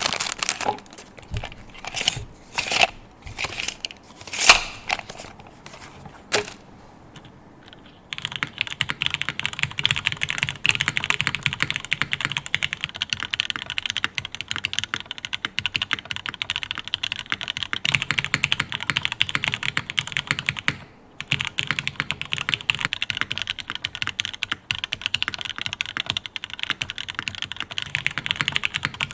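Mechanical keyboard with Cherry MX Black linear switches in a Jane v2 CE case on a top-mounted aluminium plate. There are a handful of separate keystrokes over the first several seconds, a short pause, then continuous fast typing from about eight seconds in, with a brief break near the twenty-second mark.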